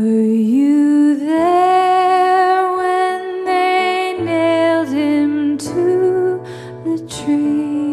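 A woman sings a slow hymn solo into a microphone, holding long notes, over soft keyboard accompaniment.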